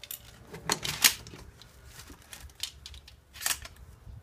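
Mossberg shotgun being handled: a string of irregular metallic clicks and clacks, the loudest about a second in.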